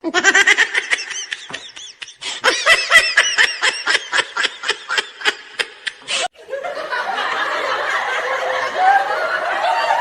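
Loud, rapid laughter in quick rhythmic ha-ha pulses that cuts off abruptly about six seconds in, followed by a denser, noisier stretch of laughing.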